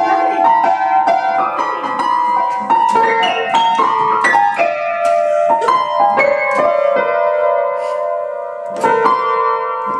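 Upright piano keys pressed by a Shetland sheepdog's paws: irregular, tuneless clusters of notes struck in quick succession, some left ringing, with a fresh loud cluster near the end.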